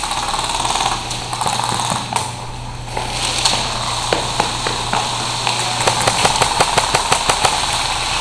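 Airsoft guns firing in an indoor arena: scattered single shots, then a rapid string of sharp cracks about five and a half seconds in. A steady low hum runs underneath.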